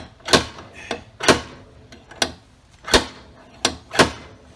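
Slide-hammer dent puller striking repeatedly on a stud welded to a car body panel: sharp knocks about once a second, one fainter than the rest. The stud is holding, so the dent is being pulled out.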